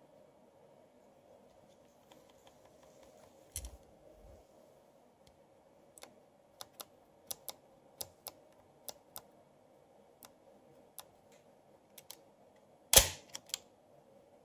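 Nikon FE2 film camera controls being turned through their click-stops, giving a string of small sharp mechanical clicks as the aperture and shutter speed are changed. One much louder mechanical clack comes near the end, followed by a couple of lighter clicks.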